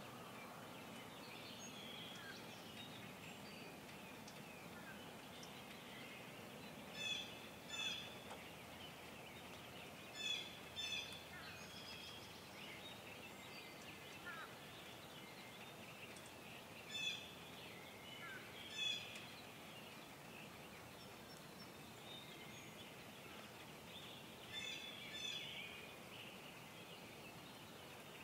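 Birds calling: short, clear calls in pairs every few seconds, over a faint, constant chatter of more distant birdsong.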